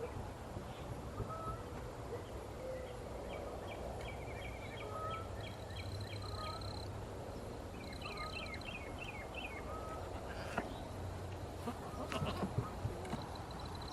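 Backyard poultry calling, with wild birds singing two runs of quick repeated chirps and a thin high whistle. A few light knocks come near the end.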